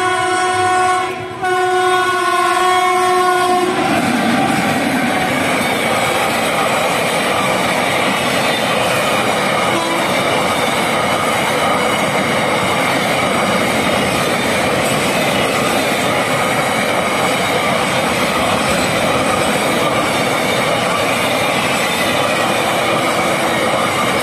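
Indian Railways WAG-7 electric freight locomotive sounding its air horn in two long blasts with a short break, the second stopping about four seconds in. Then a loaded container freight train rolling steadily past: the even noise of wagon wheels on the rails, which goes on without a break.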